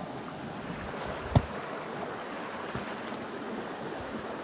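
Steady rushing of running creek water, with one sharp knock about a second and a half in.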